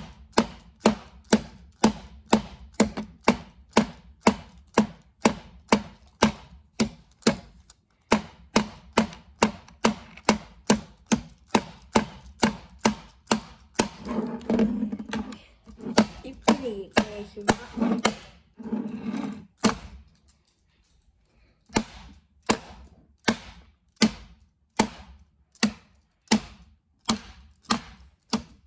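A small orange plastic toy hammer repeatedly strikes a purple plastic toy horn, giving sharp hollow knocks about two to three times a second. The blows break off for a couple of seconds about two-thirds of the way in, then resume more softly.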